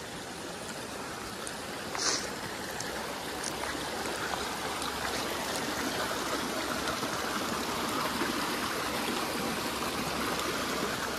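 Water running steadily down a small stony irrigation channel between flooded rice paddies, growing a little louder from about four seconds in. A brief sharp noise about two seconds in.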